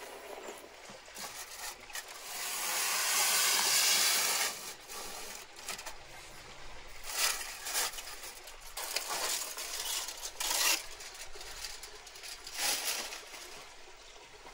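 Aluminium foil crinkling and rustling in several short bursts as it is peeled off a clay baking dish, after a longer, louder stretch of rustling noise early on.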